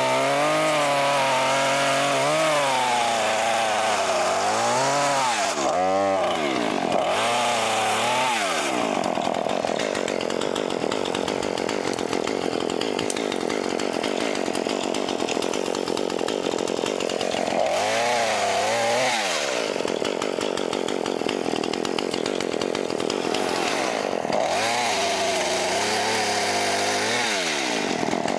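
Two-stroke chainsaw cutting through trees: it revs up and down repeatedly, then is held at a steady high pitch for several seconds in the middle while cutting, and revs up and down again near the end.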